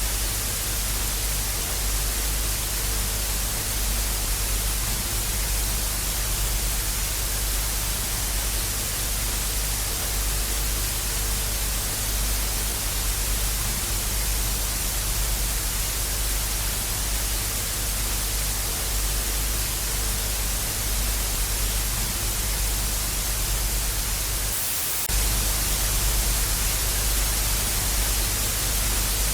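TV static sound effect: a steady hiss of white noise over a low hum. The hum drops out briefly about 25 seconds in, and the static is slightly louder after that.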